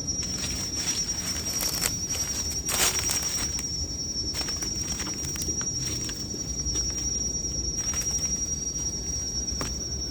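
Forest ambience: a steady high-pitched insect drone, with scattered short rustles and knocks from handling or movement.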